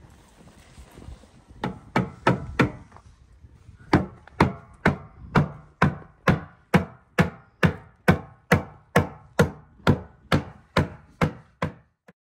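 A steady series of sharp, ringing knocks: four scattered hits, then from about four seconds in an even beat of about two knocks a second, which stops suddenly near the end.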